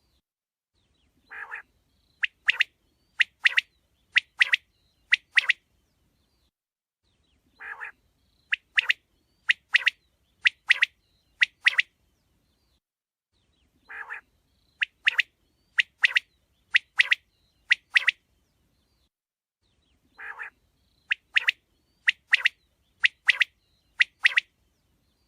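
Quail calling in a repeated phrase: a soft low note, then four quick pairs of sharp, loud calls. The same phrase comes back about every six seconds, four times in all.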